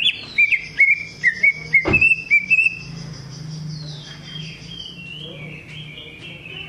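Cucak ijo (green leafbird) singing: a quick run of short, loud whistled notes for the first three seconds, then softer warbling, over a high steady whistle held for several seconds. A single knock about two seconds in.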